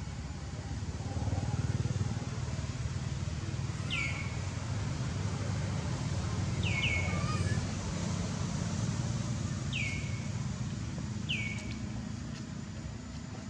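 A steady low rumble of distant motor traffic. Over it come four short, high bird calls, each dropping quickly in pitch, spaced a few seconds apart.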